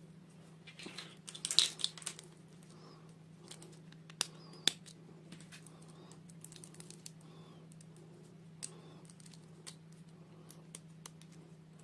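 Small plastic toy pieces and packaging being handled: scattered light clicks and taps, a short burst of crinkling and rustling about a second and a half in, and two sharp clicks a little after four seconds. A steady low hum sits underneath.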